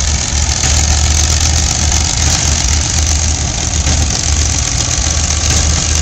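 Wisconsin V4 engine on a 1946 New Holland Model 76 baler running steadily under load, driving the baler as it takes in straw, with an uneven low pulsing.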